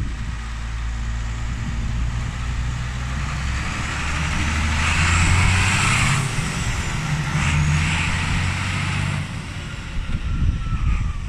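Straight-piped diesel engine of an International 1255 tractor driving past: it grows louder as it approaches, is loudest about halfway through as it passes close by, then drops in pitch and fades as it moves away.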